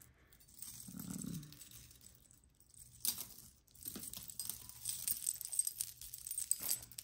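Metal costume-jewelry chains, bangles and charms jingling and clinking together as a hand rummages through a heap of them, busier and louder from about three seconds in.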